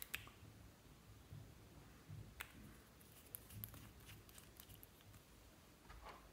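Faint light clicks and taps of a small glass nail polish bottle and its screw cap being handled and closed, a cluster of them a little past the middle, over near silence.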